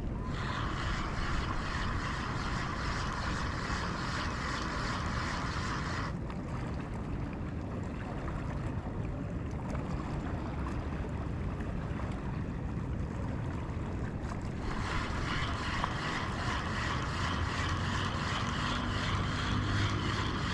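Steady wind and water noise aboard a small fishing boat at sea, with a brighter hiss over roughly the first six seconds and again from about fifteen seconds on.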